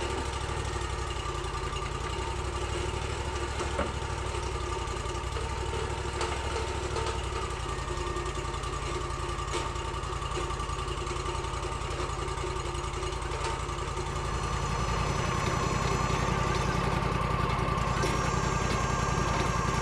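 Sawmill engine running steadily, getting louder about three-quarters of the way through.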